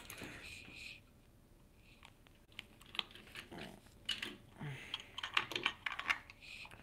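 A small plastic toy accessory and a die-cast toy car being handled: a string of light clicks and rattles. The handling is sparse at first and comes thicker from about three seconds in.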